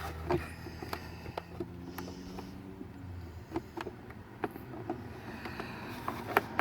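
Scattered light clicks and taps of hands working plastic dashboard trim to reach and release a retaining clip, over a steady low hum.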